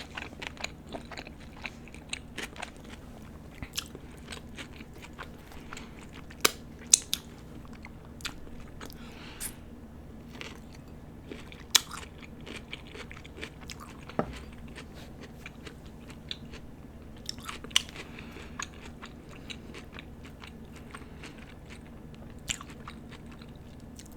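A person chewing a bite of a Whopper with cheese burger: wet mouth clicks and smacks with a few sharper crunchy snaps, loudest about a quarter and half way through.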